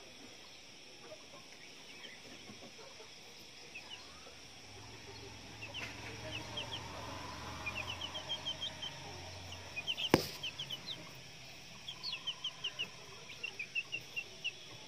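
Chickens making short, high-pitched peeping calls in quick runs of several notes a second, with a single sharp click about ten seconds in.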